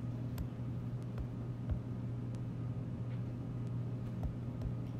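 Steady low hum under the recording, with about half a dozen faint taps of a stylus on the tablet screen.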